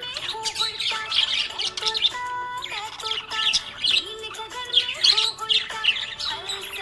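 Budgerigar chirping in quick, repeated short calls, over background music with held notes.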